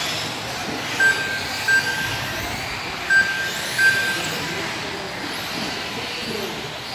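Electric 1/10 RC buggies running on an indoor carpet track, a steady whir of motors and tyres. Four short electronic beeps come in two pairs, typical of the lap-timing system as cars cross the line.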